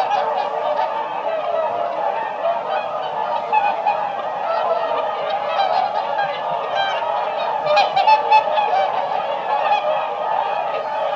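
A flock of swans calling, many honking calls overlapping into a continuous din, with a few louder calls about eight seconds in.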